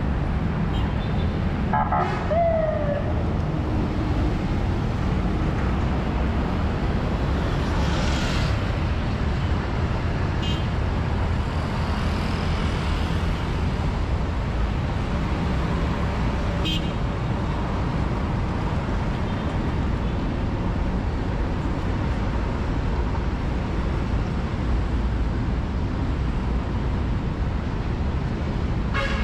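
Steady traffic noise from a busy multi-lane road, cars and motorcycles running past in a continuous low rumble. A short falling tone sounds about two seconds in, and a few faint clicks come later.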